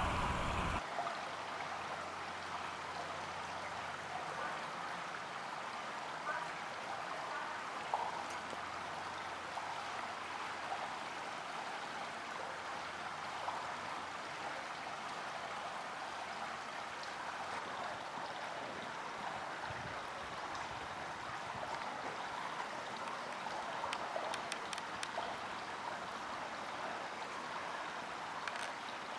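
Steady running water, an even splashing hiss, with a few faint clicks over it.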